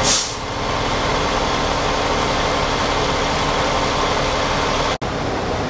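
Emergency vehicles, a fire engine among them, idling at the roadside: a steady low engine drone with a faint hum. There is a short hiss right at the start.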